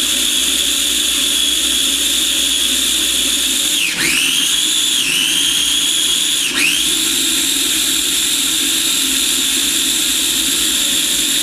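Food processor motor running at full speed, chopping garlic cloves into a thick olive-oil mayonnaise. Its high whine drops and climbs back twice, about four and six and a half seconds in.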